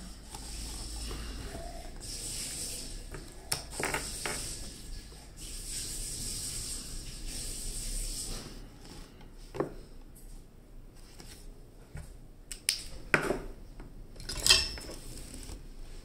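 Small parts and tools handled on a keyboard circuit board. For about the first half there is a soft, scratchy rubbing. After that come a few sharp clicks and taps, the loudest near the end.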